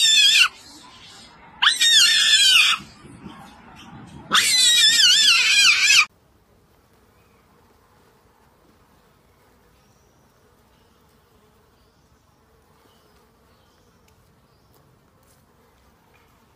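Macaque screaming: three loud, high-pitched screams with a wavering pitch in quick succession, the last the longest at about two seconds, then only faint background.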